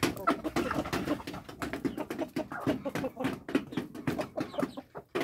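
Chickens clucking as they peck grain off a wooden coop floor, with many quick taps of beaks on the board.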